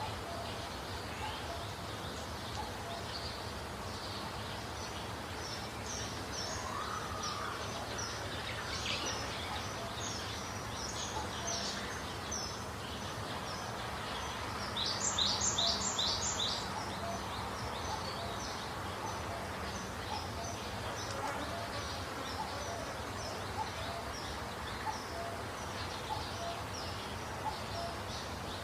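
Songbirds chirping, with many short high chirps repeating throughout and a louder run of about four quick notes about halfway through, over a steady low background rumble.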